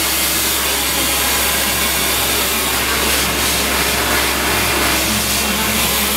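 Hair dryer blowing, a steady, unbroken rushing noise.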